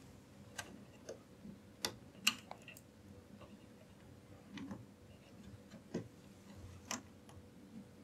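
Faint, irregular clicks and taps of a plastic cable connector being handled and pushed onto a motherboard's front-panel HD audio header.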